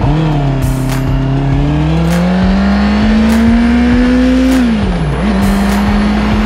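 Motorcycle engine pulling away, its revs climbing steadily, then dropping and picking up again about five seconds in as the rider shifts up, and holding steady after that. Wind rumble sits underneath.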